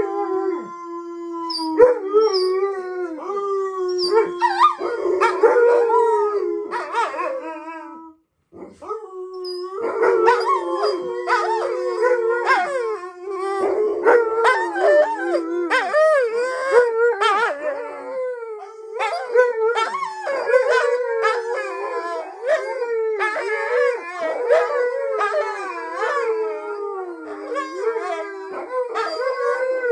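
Several Alaskan malamutes howling together, long overlapping howls that hold and waver in pitch. They break off briefly about eight seconds in, then resume as a denser chorus.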